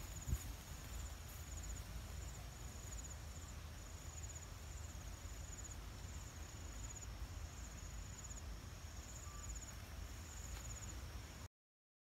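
An insect chirping in short high trills, repeating about once a second, over a low rumble, with a single sharp knock just after the start. The sound stops abruptly near the end.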